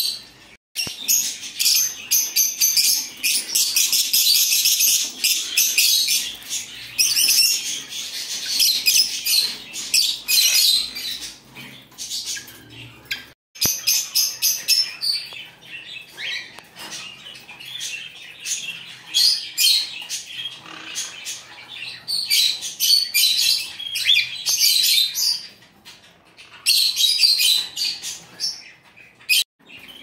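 A cageful of small birds chirping and twittering together in rapid, high-pitched bouts, with two brief gaps, one about halfway through and one near the end.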